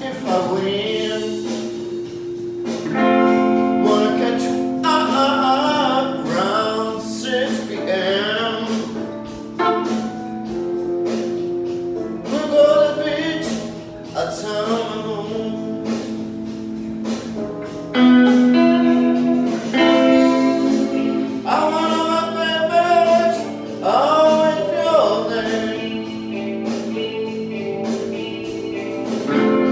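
Blues music: a voice improvising a wavering, bending melody over steady held chords.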